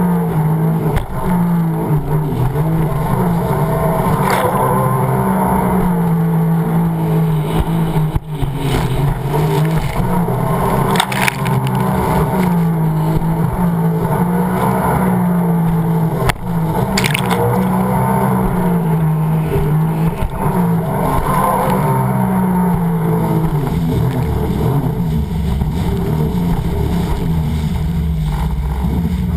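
Sea-Doo personal watercraft engine running hard, its pitch rising and falling again and again as the throttle and load change, over the rush of water and spray hitting the hull and camera, with a few sharp splashes.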